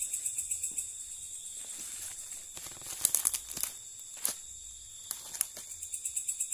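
Dry leaf litter and twigs crackling and snapping underfoot, in a few sharp cracks around the middle, over a steady high, pulsing chorus of night insects.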